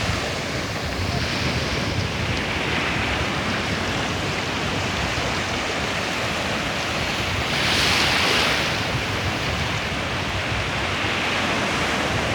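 Indian Ocean surf: waves breaking and washing up the beach in a steady rush, with one wave louder about eight seconds in.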